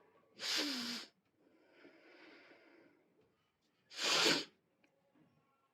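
A person sneezing twice, about three and a half seconds apart, with a softer breath drawn in between.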